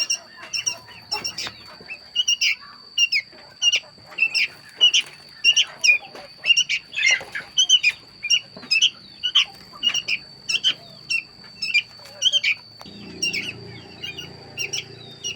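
Small animals squeaking, with sharp high-pitched calls about twice a second, over a steady high whine; a low hum comes in near the end.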